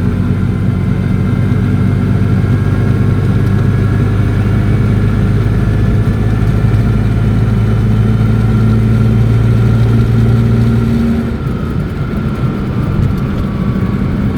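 Invacar's small engine and belt-drive transmission running at speed inside the cabin: a steady drone with a thin high whine above it, which the owner thinks may be a transmission bearing going. The drone eases off and drops in level about eleven seconds in.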